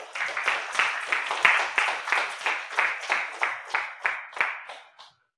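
Audience applauding, with distinct claps at about three a second. The applause dies away shortly before the end.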